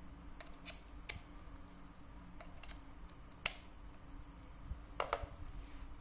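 A few small, sharp clicks and taps from handling a digital multimeter and its test leads, the loudest about three and a half seconds in and a quick pair about five seconds in, over a faint low hum.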